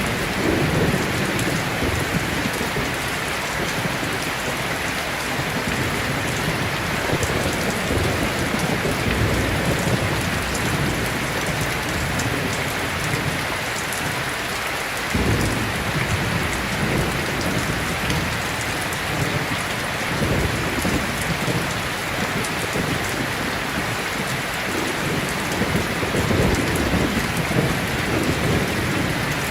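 Steady rain falling, with low rolling rumbles of thunder that swell and fade throughout, briefly dropping away about halfway through before rumbling up again.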